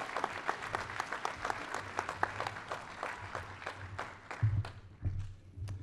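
Audience applauding, the clapping thinning out about four seconds in, with a couple of low thumps near the end.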